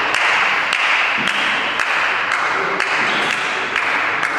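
Table tennis ball clicking against bats or the table, about two sharp clicks a second, over a steady hiss of hall noise.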